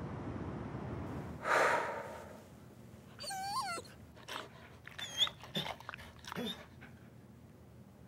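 A dog whining and whimpering in short, high-pitched cries that rise and fall, starting about three seconds in. A loud breathy huff comes about a second and a half in.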